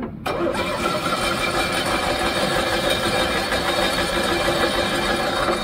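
A 1984 Cushman three-wheeler's engine catches just after the start and runs steadily for about five seconds, then quits near the end. This is a long-parked engine being run on fuel fed in from a jug.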